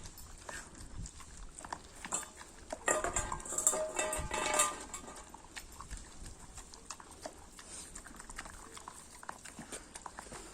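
A Dalmatian eating rice: scattered wet clicks and ticks of chewing and lapping at its food. A louder stretch with a pitched sound comes about three to five seconds in.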